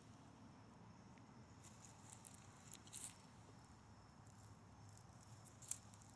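Near silence, with a few faint, brief rustles about three seconds in and again near the end.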